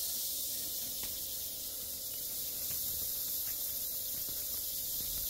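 A steady high-pitched hiss, unchanging throughout, with a faint low rumble beneath.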